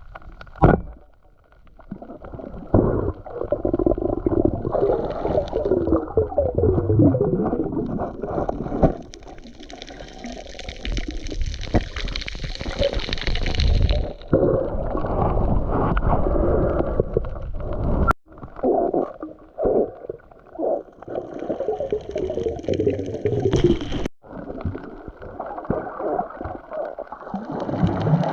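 Muffled gurgling and rushing of water recorded underwater, with bubbling and swishes from movement in the water.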